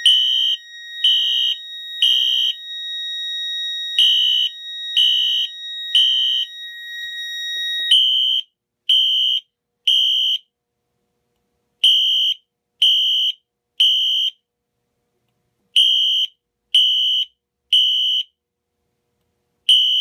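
Wheelock Exceder horn strobe sounding the code 3 temporal pattern: three short high-pitched horn blasts, then a pause, the group repeating every four seconds, signalling an alarm from a pulled manual pull station. For the first eight seconds a steady electronic tone sounds underneath, then cuts off.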